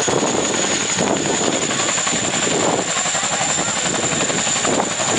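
CH-47 Chinook tandem-rotor helicopter running on the ground with both rotors turning ahead of takeoff: loud, steady rotor and twin-turboshaft noise over a constant high turbine whine.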